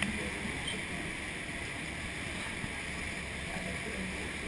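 Steady rush of wind and churning water on the open deck of a moving tour boat, with a low rumble underneath.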